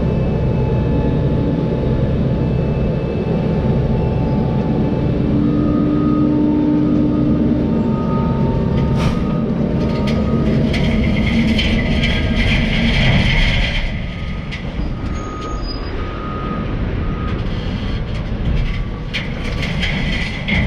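Heavy truck engine running with a steady low rumble as the loaded rig moves. About two-thirds of the way through the rumble drops back and metal rattling and clanking takes over, with faint short beeps heard now and then.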